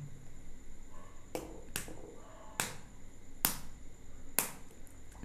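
Raw egg being tapped to crack its shell: five sharp taps, the first two close together, then roughly one a second.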